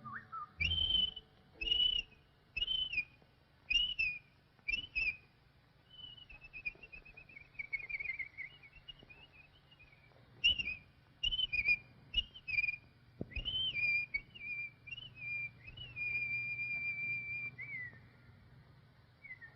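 Whistled bird calls: short chirping notes about once a second, then a long wavering run that falls in pitch, then more chirps and a long held note that drops off near the end. A faint steady low hum lies underneath.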